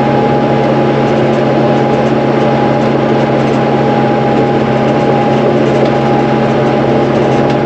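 Tractor engine running steadily under load, working a round baler through hay, with a constant whine over the drone.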